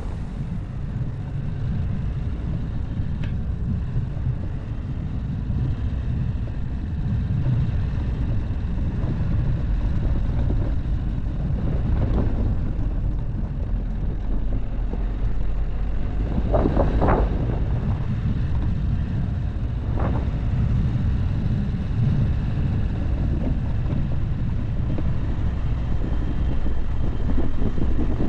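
SUV driving off-road: a steady low rumble of engine and tyres, with a few short louder noises, the most marked about 17 seconds in.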